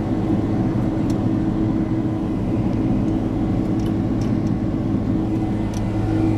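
Cabin noise of a Boeing 767-300ER in its climb after takeoff: a steady drone of the jet engines and rushing air, with a low hum held at one pitch.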